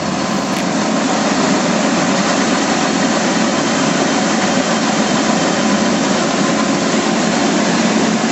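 Grain crimper roller mill running steadily with a dense, even mechanical noise.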